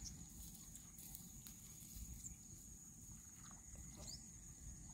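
Near silence: faint outdoor ambience with a low rumble, a steady faint high-pitched tone, a few soft clicks and several short faint chirps.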